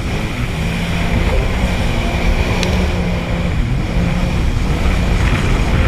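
Sea-Doo jet ski engine running steadily under way, with the rush of wind and water spray around it.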